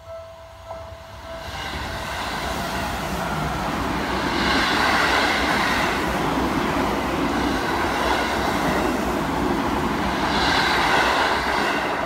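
A Seibu Railway train passing over a level crossing at close range: the crossing's warning tone sounds at first, then the train's running noise rises about a second and a half in and stays loud, peaking twice, and drowns out the warning until it eases off near the end.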